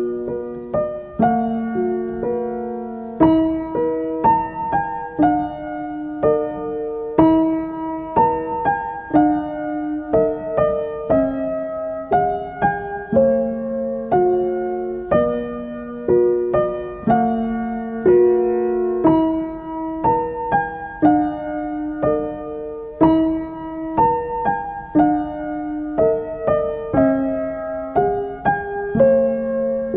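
Background piano music: a gentle melody of evenly paced notes in a repeating phrase.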